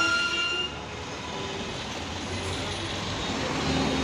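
Busy city road traffic, with a vehicle horn sounding one steady note in the first second before cutting off, followed by the steady noise of passing engines and tyres.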